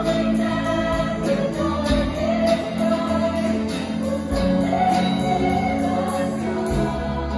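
Choir singing a sustained song, accompanied by an acoustic guitar strummed about twice a second.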